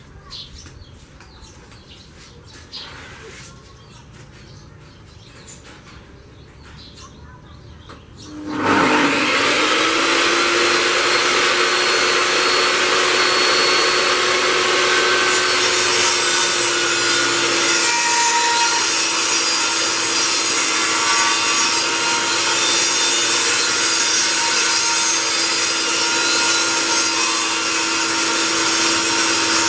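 A Bosch GTS10J table saw switched on about eight seconds in after some faint clicks. Its motor spins up quickly, then runs loud and steady with a constant tone while a 15 mm plywood board is fed through the blade.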